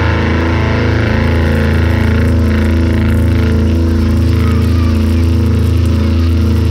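A loud, steady low drone of a held, distorted bass note ringing out, with a hum-like low tone and a stack of overtones above it.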